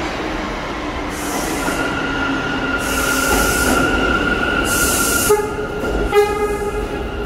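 R179 subway train pulling into the station: a steady high squeal from the wheels sets in after a couple of seconds, with three short bursts of hiss. Near the end, a pitched tone sounds twice in quick succession.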